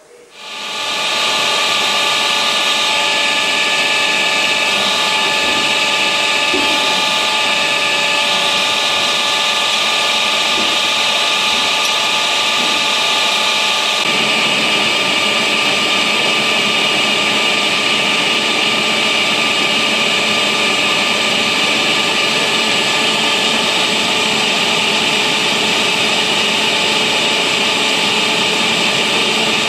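Machine tools running steadily, a continuous motor and gear whine with several held tones. About halfway through the sound changes to that of a vertical boring mill turning a large steel ring on its rotating table.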